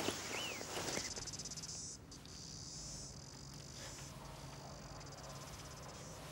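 Crickets trilling in fast, even pulses, over a low steady hum.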